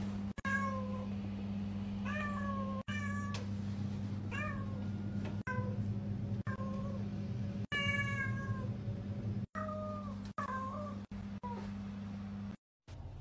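Orange tabby cat meowing over and over, about a dozen short meows that each fall in pitch.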